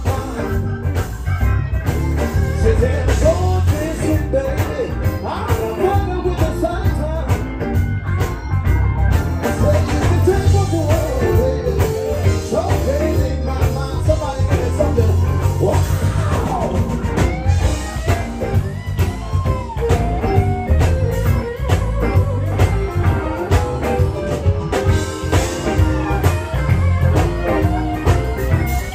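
A live electric blues band playing, with electric guitars over bass and drums and a bending lead melody line at the microphone.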